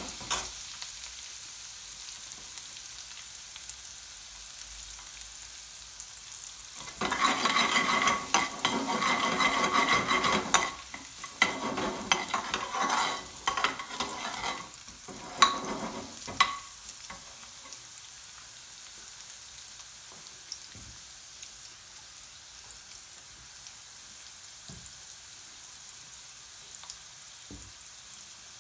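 Chopped garlic sizzling in hot oil in a metal pan. A metal spoon stirs and scrapes against the pan, loudest for a few seconds in the middle, with scattered clinks after it. The sizzle then carries on alone.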